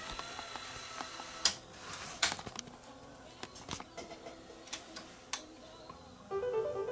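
Sony PCM-R300 DAT deck's tape transport searching to the next track: a faint motor whine that rises and then holds, and a series of sharp clicks from the mechanism and its buttons, the loudest two a second or so apart. Near the end, playback of the tape's music starts.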